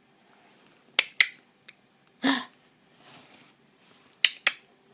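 Sharp clicks made by a mother to amuse her baby, in two quick pairs: one about a second in and another near the end. Between them comes a short breathy sound.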